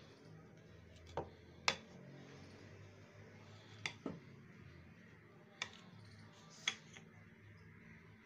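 Metal spoon mixing a dry gram-flour, spinach and onion pakora mixture in an enamel bowl, with about six sharp clinks of the spoon against the bowl at irregular intervals.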